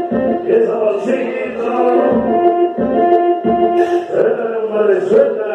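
Mexican cumbia track in the 'wepa' style played loud over a DJ sound system, with a steady bass beat, held keyboard tones and a singing voice.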